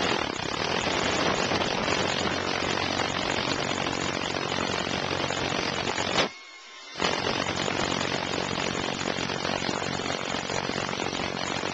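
Hilti hammer drill with a 7/8-inch concrete bit drilling into a concrete floor, running steadily. It stops for a moment about six seconds in, then starts again.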